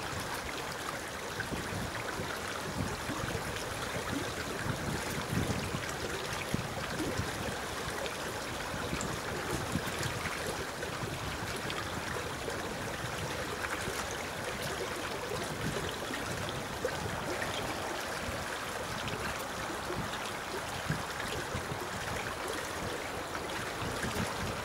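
Four-engined Airbus A340-300 airliner landing, heard from afar as a steady rushing jet noise from its CFM56 engines, with gusts of wind buffeting the microphone.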